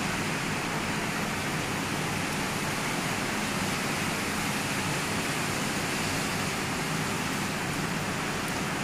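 Steady, even room noise, a constant hiss with no distinct sounds standing out.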